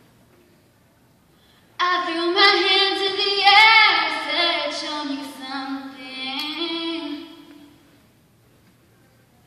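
A teenage girl singing solo without accompaniment into a microphone: one phrase with held notes, starting about two seconds in and stopping about a second and a half before the end.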